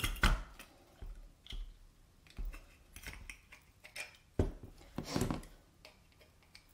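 Irregular clicks, taps and light knocks of small craft tools and pieces being handled, the sharpest just after the start.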